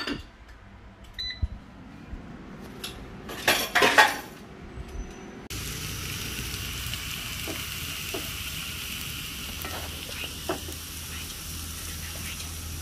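A short electronic beep about a second in, then a clatter of a pan and utensils a few seconds in. About five and a half seconds in, a steady hiss with a low hum starts abruptly and runs on as the cooking hob heats the pan.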